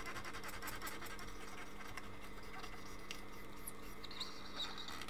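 Faint, scratchy rubbing of an IPA-soaked cotton swab scrubbing a circuit board's contact tracks to lift residue, over a steady low electrical hum.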